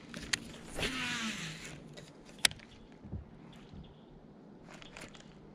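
Fishing gear being handled: a baitcasting rod and reel giving two sharp clicks about two seconds apart, with a brief whirring rush about a second in.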